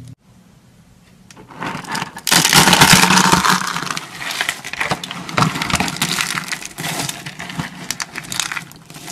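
Dry carved soap shavings and curls crunching and crackling as hands crush and rub them in a pile. The crunching starts about a second and a half in, is loudest soon after, then goes on in irregular crunches.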